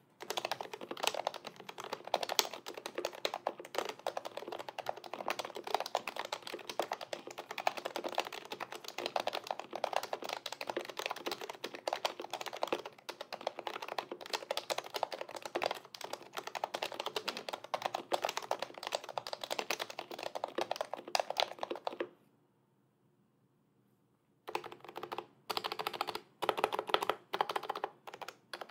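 HHKB Pro 2 Topre keyboard with BKE Light V1 domes, silencing rings and lubed sliders, typed on fast and continuously. The typing stops for about two seconds near the end, then resumes in short separate bursts of keystrokes.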